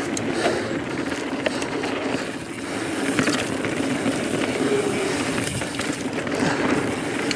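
Transition Spur 29er mountain bike rolling fast down dry dirt singletrack: a steady rush of tyre and wind noise, with scattered clicks and rattles from the bike over the rough ground.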